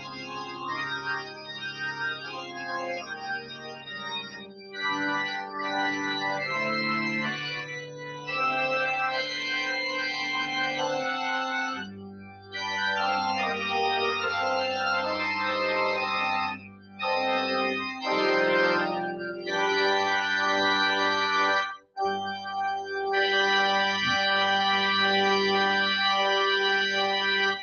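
Organ playing slow, held chords in phrases with short breaks between them, cutting off suddenly at the end.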